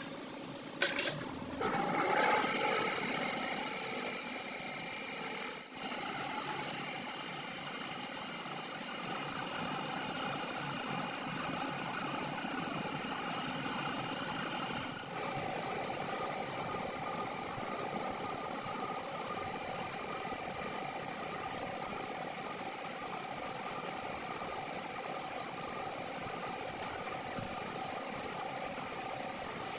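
A machine motor starts about two seconds in, after a click, and then runs steadily with a constant whine, dipping briefly twice.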